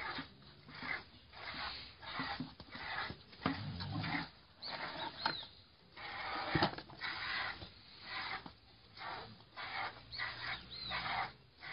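Piglet suckling at a cow's teat: a rhythmic sucking noise, about two pulls a second. There is one sharp click a little past halfway.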